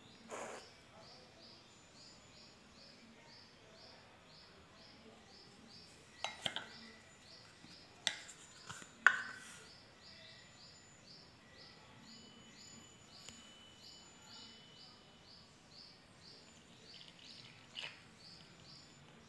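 Utensil clinking and tapping against a glass bowl as wheat chik powder is tipped in: a few sharp clinks about six to nine seconds in, the loudest near nine seconds, and one softer knock near the end. A faint high tick repeats about twice a second in the background.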